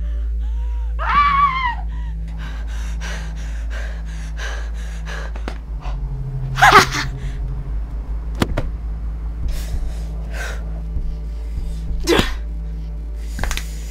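Fight sound effects over a low, steady music drone: short pitched cries and gasps, the loudest about seven seconds in, with quick whooshes and sharp hits in between.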